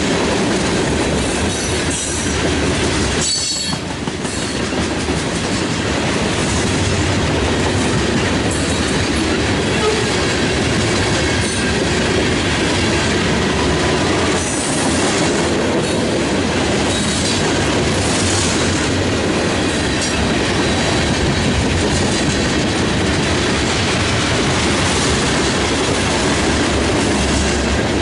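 Norfolk Southern freight train's covered hopper cars rolling past at close range: a steady rumble and clatter of steel wheels over the rails, with a few brief high wheel squeals in the first few seconds.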